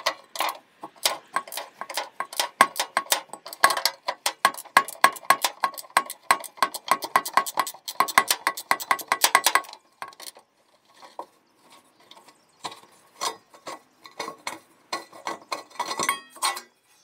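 Hand ratchet wrench clicking in a quick, even run, about six to eight clicks a second, as a fastener on a salvage engine is worked; the run stops about ten seconds in, and slower, scattered metal clicks and taps follow.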